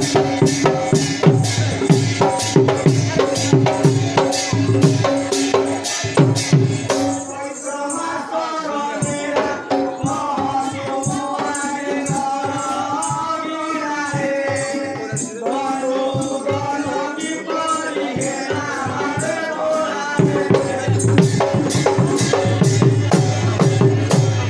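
Live Odia folk dance music: a barrel drum and jingling percussion beat out a fast steady rhythm. About seven seconds in the heavy drum drops away and a voice sings over lighter percussion, and the drum comes back in near the end.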